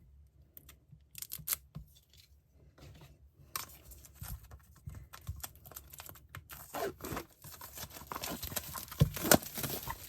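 Packaging being torn open and pulled off a diary, crinkling and tearing. It is sparse at first, then busier and loudest near the end.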